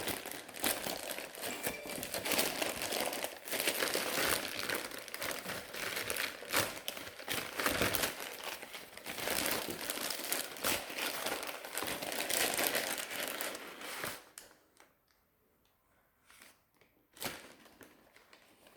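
Plastic courier bag crinkling and rustling as it is torn open and handled by hand. The crinkling stops about 14 s in; a single sharp click follows a few seconds later.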